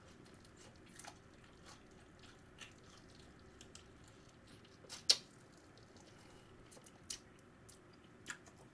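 Faint close-up chewing of a mouthful of sauce-glazed fried chicken, with scattered small wet mouth clicks and one sharper click about five seconds in.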